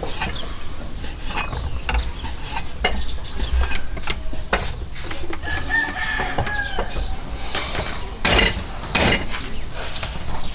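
A rooster crowing about midway, one drawn-out call, over light clicks and rustles of hands mixing noodles in a basin. Two loud sharp sounds come near the end.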